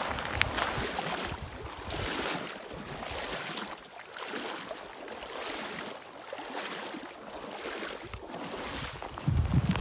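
A hiker's shoes splashing step by step through a shallow stream, with the sloshing of running water around them.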